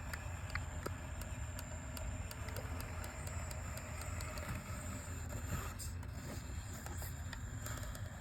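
RC rock crawler running slowly: a steady hum from the electric motor and drivetrain, with many small sharp clicks and ticks throughout.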